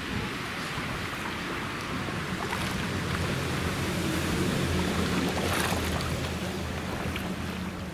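Kayak paddling: splashing and dripping from the double-bladed paddle over a steady hiss of wind and moving water. A low steady hum comes in underneath from about three seconds in.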